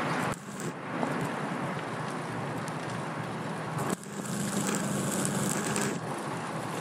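Steady road and traffic noise during a fixed-gear bike ride, with a sudden drop in level about a third of a second in and again about four seconds in.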